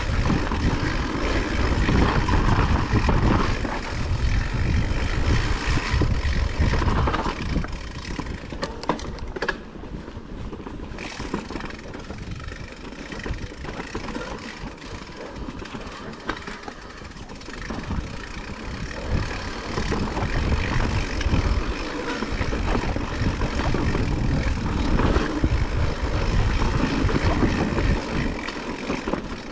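Blizzard wind gusting and buffeting the microphone, easing off for a while in the middle and then picking up again.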